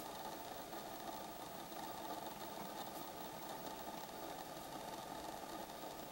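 A vehicle engine idling with a steady hum, with a few faint clicks.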